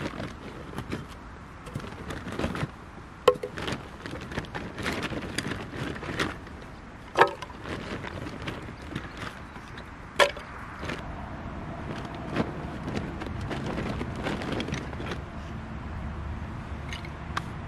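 Wood being split or struck on a homemade zelkova chopping block: three hard, sharp knocks a few seconds apart, with lighter knocks and handling clatter between.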